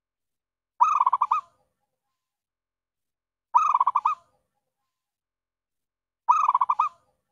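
Zebra dove (perkutut) call: a short, quick stuttering phrase of clear coos, heard three times at even intervals of nearly three seconds. It is a clear lure call used to draw in wild zebra doves.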